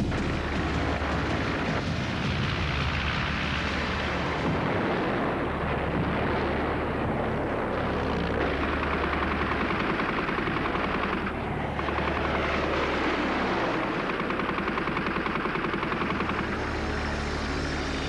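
Propeller aircraft engine running steadily, a dense unbroken drone.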